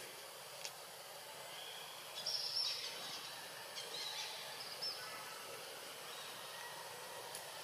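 Steady outdoor background hiss, broken by a few short high-pitched animal chirps or squeaks about two seconds in and again around four to five seconds.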